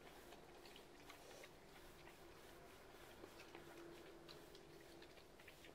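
Near silence: two pigs eating feed from metal pans, heard only as faint, scattered crunching clicks.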